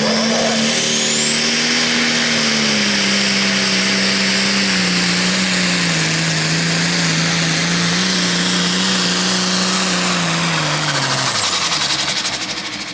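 Super stock pulling tractor's turbocharged engine at full power through a pull. A high turbo whine rises over the first two seconds and holds over a steady engine note whose pitch sags slightly under load. Near the end the engine winds down, the whine fades and the sound drops away as the pull ends.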